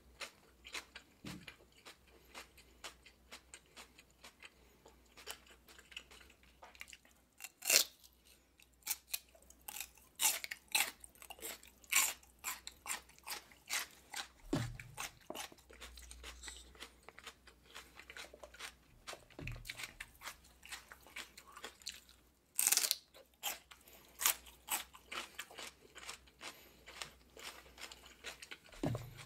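Raw celery stalk being chewed close to the microphone: a continual run of crisp, fibrous crunches. Two crunches stand out as much louder, about 8 seconds in and again about 23 seconds in.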